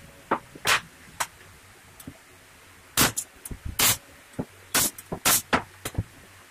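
Irregular knocks and clatter of MDF parts and a combination square being picked up and set down on a wooden workbench, busiest and loudest in the middle.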